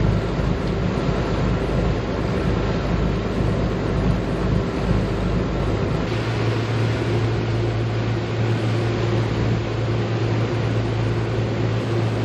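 Steady drone of a motor yacht's engines running under way, mixed with a constant rush of wind and water. About halfway through, a strong low hum comes up and holds steady.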